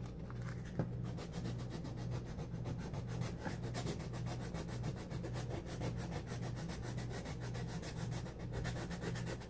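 Sandpaper rubbed by hand in quick back-and-forth strokes over the varnished oil-paint surface of a canvas, scuffing off the varnish, over a steady low hum.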